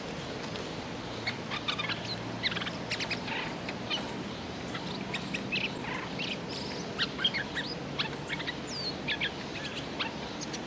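Bulbul giving many short, scattered chirps and call notes, some in quick runs, over a steady background hiss.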